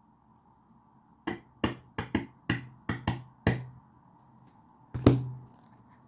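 A quick run of about eight sharp taps over two seconds, then one louder knock about five seconds in.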